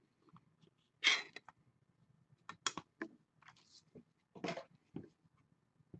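Plastic magnetic card holder and clear card sleeve being handled: a few faint, short rustles and sharp clicks, spaced out over several seconds.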